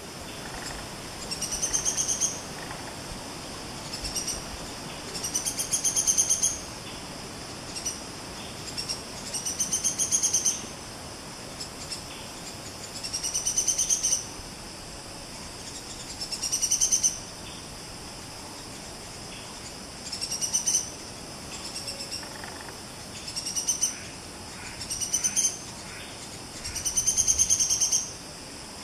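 Buff-rumped woodpecker giving a series of high, rapid trills, each about a second long and swelling in loudness before cutting off, repeated every few seconds over a steady rainforest insect hiss.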